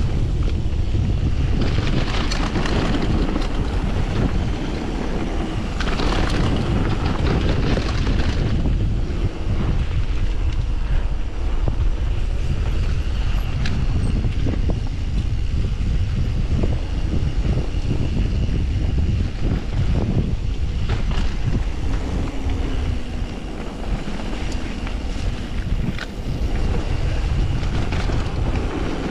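Wind buffeting the microphone as a mountain bike rides fast downhill on a dirt and gravel trail, with tyres hissing and crunching over loose stones in short stretches and a few sharp clicks and rattles from the bike.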